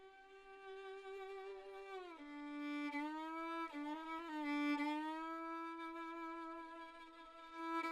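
Solo violin playing slow, held notes with sliding pitch as a film score; the line drops about two seconds in and glides upward near the end.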